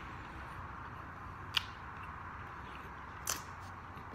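Close-miked chewing of crispy fried chicken, with two sharp crunches, one about a second and a half in and one a little past three seconds, over a steady hiss.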